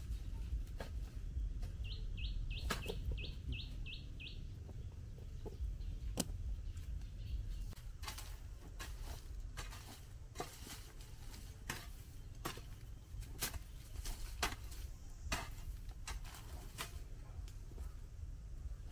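Chickens clucking, with a quick run of about eight high peeps about two seconds in. Sharp taps and knocks come throughout over a low rumble.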